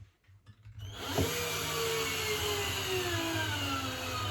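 Cordless drill starting up about a second in and running steadily, its motor whine falling slowly in pitch as it slows: the battery is running out of charge.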